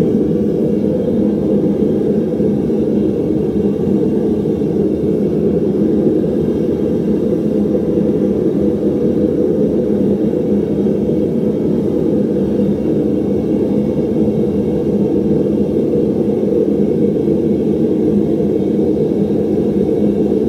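Gas-fired metal-melting furnace running with its lid off: a steady, loud, low rumble of the burner.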